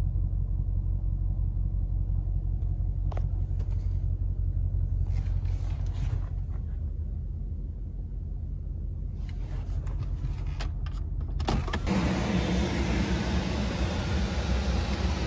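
Low steady rumble of a 2022 Mercedes-AMG GLE 63 S's twin-turbo V8 idling with the SUV standing still, heard inside the cabin, with a few light clicks. Near the end a louder, steady rushing noise takes over.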